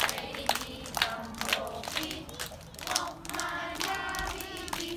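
A small group clapping hands in rhythm, about three claps a second, with children and adults singing along.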